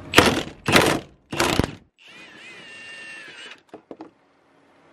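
Milwaukee cordless impact wrench firing in three short bursts on a body mount bolt under the truck. A wavering high-pitched squeal follows for about a second and a half, then a few light clicks.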